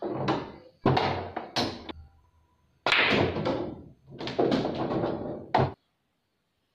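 Pool balls struck by a cue and clacking against one another and the cushions, as a series of sharp knocks that ring on in a hard-walled room, several of them cut off abruptly.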